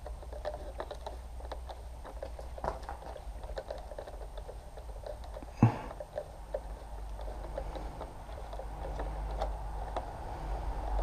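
Hand screwdriver turning a screw out of a plastic motorcycle windscreen: scattered small clicks and scrapes, with one sharper knock a little past halfway.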